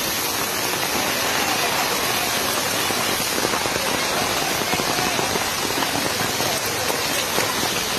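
Heavy rain pouring down on a flooded street, a dense, even hiss with no break.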